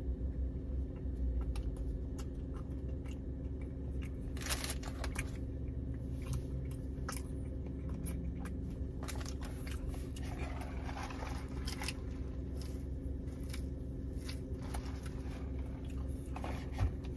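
A man chewing a mouthful of breakfast burrito close to the microphone: scattered mouth clicks and smacks over a steady low hum in the car's cabin.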